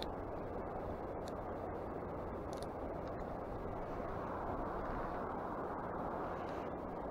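Steady rushing noise of a fast-flowing river's current, with a few faint high ticks.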